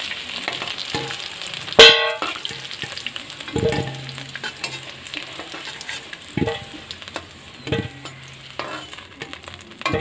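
Potatoes sizzling in hot mustard oil in a metal kadai as a metal spatula lifts them out, the sizzle thinning once the first are out. About two seconds in a loud short metal clank rings out, and a few lighter knocks of the spatula on the pan follow.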